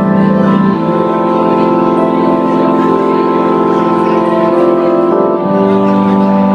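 Live band music: sustained keyboard chords held steadily, moving to a new chord about a second in and again near the end.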